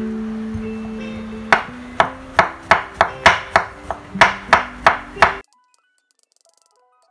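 A kitchen knife slicing button mushrooms on a wooden cutting board: about a dozen quick knocks of the blade on the board, roughly three a second, over acoustic guitar music. Both stop abruptly a little over five seconds in.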